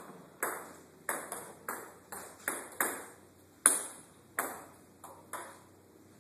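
Table tennis rally: the ball clicks sharply off the rubber bats and the table about a dozen times at an uneven pace, each click fading with a short echo, and the rally stops about five and a half seconds in.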